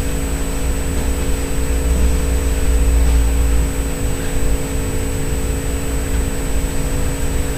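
Room background noise: a low rumble that swells between about two and four seconds in and then eases, over a steady hum.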